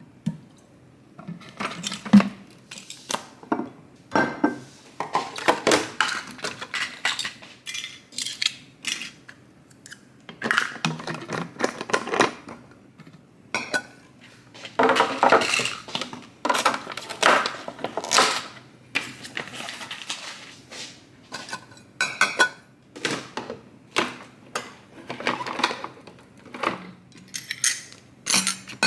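Irregular clinks, clatters and knocks of kitchen containers and dishes being picked up, moved and set down one after another.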